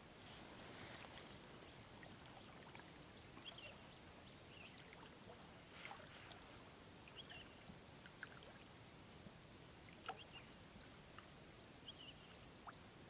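Faint water sloshing and lapping around anglers wading chest-deep, over a low steady hiss, with a few small ticks.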